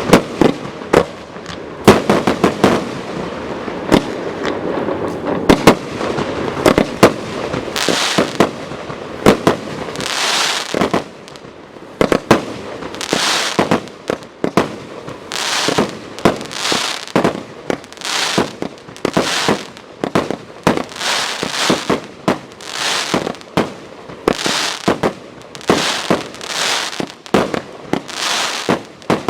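A consumer firework battery (cake) firing. It opens with a dense run of sharp bangs over crackle, then from about eight seconds in settles into a steady rhythm of roughly one shot a second, each a hissing burst with sharp bangs.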